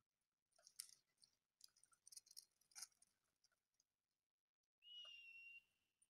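Faint patter and scuffs of dogs' paws running on asphalt, then about five seconds in a single steady high tone lasting under a second.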